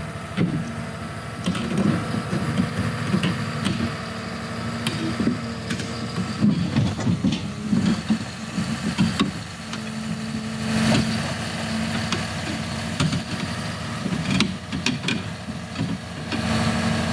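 John Deere 750L crawler dozer's diesel engine running as the machine crawls up onto a lowbed trailer, with occasional sharp knocks over the steady hum.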